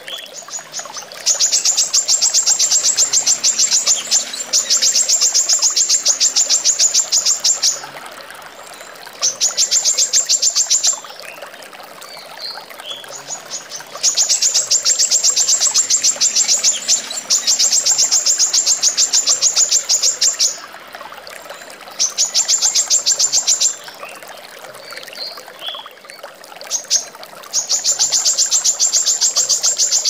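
Female brown-throated sunbird (kolibri kelapa) singing long, very rapid runs of sharp, high, evenly spaced notes, several bursts of two to six seconds with short pauses between. Behind them is a steady sound of trickling water.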